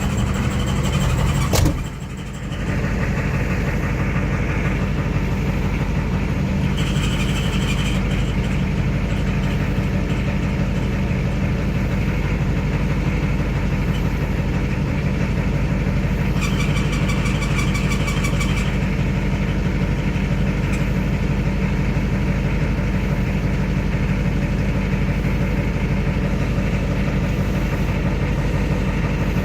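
Ford IDI diesel truck running steadily through its ZF5 S5-47 five-speed transmission, with a sharp click and a brief dip near two seconds in. A high squeal comes in twice, briefly about seven seconds in and for about two seconds around sixteen seconds in: the rear countershaft bearing race spinning in the transmission case.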